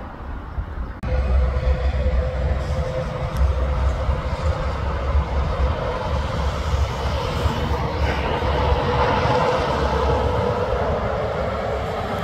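Volvo tipper truck with a multi-axle tipper trailer driving past: a low diesel engine rumble and tyre noise with a steady whine, starting suddenly about a second in and growing louder after about eight seconds.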